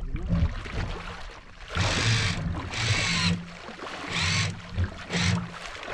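Outboard motor of a small fishing boat running at low revs, with four short bursts of rushing water noise from the propeller wash, each about half a second long.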